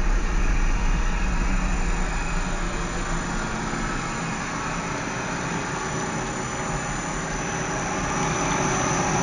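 Steady machinery noise: a low rumble with a hiss over it, with no clear rhythm.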